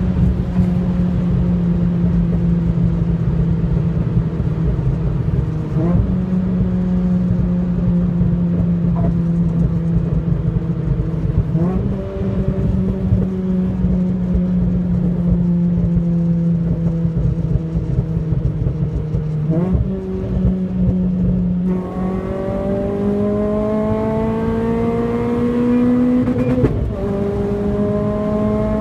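Renault Clio RS engine under way at speed. The engine note sinks slowly, with three quick jumps up in pitch about 6, 12 and 20 seconds in. From about 22 seconds it accelerates with a rising note, drops sharply at a gear change near the end, then keeps climbing.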